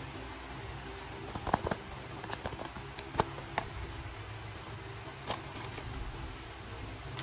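Hands handling a hand-made paper box and working its lid loose: a few scattered paper taps, clicks and rustles, the sharpest about a second and a half in and around three seconds, over a steady low room hum.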